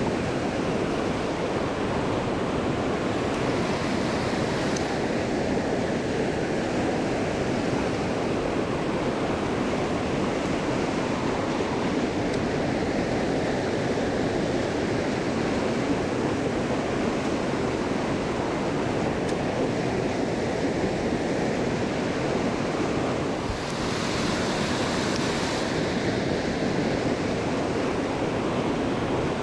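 Mountain stream water rushing, a steady, unbroken flow, with a brief brighter hiss about three-quarters of the way through.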